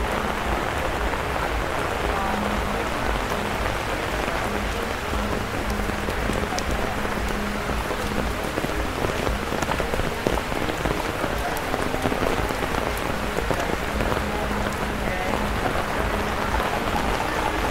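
Steady rain falling on the ground and surroundings, an even, unbroken hiss.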